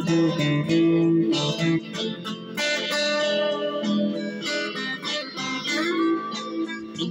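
Guitar music: plucked notes and chords, with a note bending up in pitch near the end.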